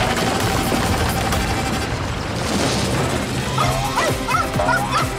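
Cartoon soundtrack: background music with drilling noise as a robot's drill tunnels through rock. Then, in the last second and a half, a small robot dog gives a series of short high yips.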